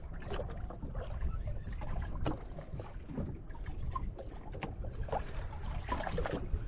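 A small boat on the water: a steady low rumble of water and wind around the hull. Scattered short knocks and clatter of gear on board come throughout.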